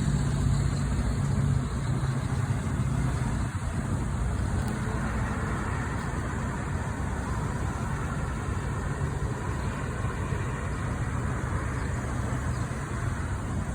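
Steady low rumble of a motor vehicle engine and traffic noise.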